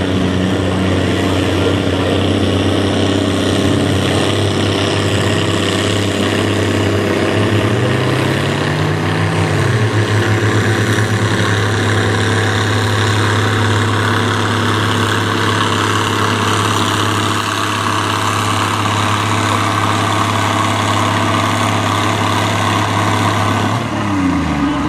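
Farm pulling tractor's diesel engine running hard and steady under load as it pulls the sled. The pitch briefly rises and falls about a third of the way in, then drops away near the end as the engine throttles down.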